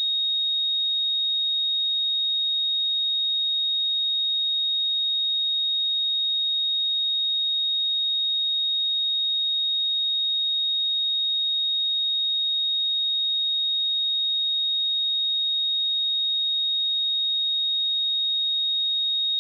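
A steady pure sine-wave test tone at 3741 Hz, a single high-pitched note held at constant pitch and level, with no overtones.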